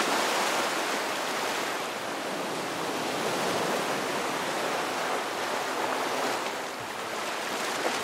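Ocean surf: a steady rushing wash of breaking waves, swelling and easing slowly.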